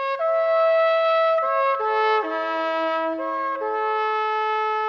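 Brass instruments playing a slow, solemn passage of held chords, two or three notes at once, stepping to a new chord every half second to a second, then settling on a long held chord for the last second or so.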